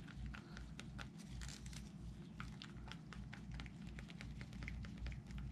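Wooden craft stick stirring thick acrylic pouring medium in a plastic cup: faint, irregular clicks and scrapes of the stick against the cup, over a low steady hum.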